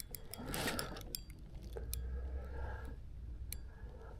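Quiet fishing-tackle handling noise during the fight with a big catfish: scattered small clicks and light rattles.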